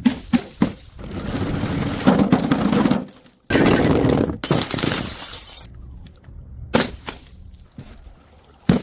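Glass bottles smashing and shattering: several sharp impacts, each followed by longer stretches of breaking-glass noise. The sound cuts out abruptly about three seconds in, then starts again.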